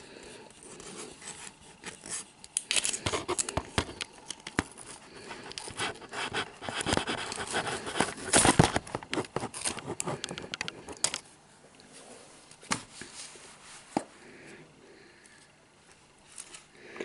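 Cardboard box packaging being handled and rummaged through: rustling, scraping and tapping, dense for about the first eleven seconds, then only a few separate taps.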